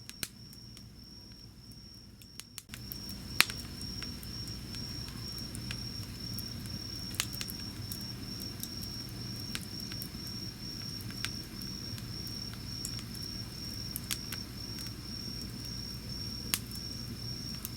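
Wood fire crackling with occasional sharp pops, over an insect's steady high pulsing chirp. A low steady rushing sound comes in about three seconds in.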